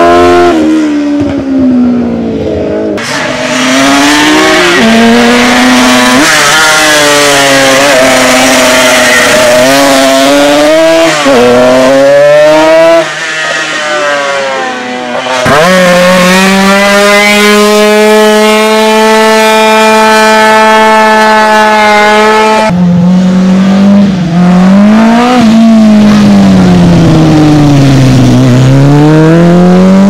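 Racing motorcycle engines at high revs, one after another: a Honda 600 sportbike's engine rising and falling in pitch, then a Piaggio Zip racing scooter's engine held at one high, steady pitch for several seconds, then another bike's revs sweeping down and back up near the end.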